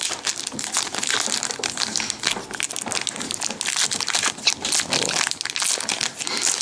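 Foil wrapper of a Yu-Gi-Oh booster pack crinkling and crackling as it is torn open and handled by hand. It is a dense, continuous rustle of quick crackles.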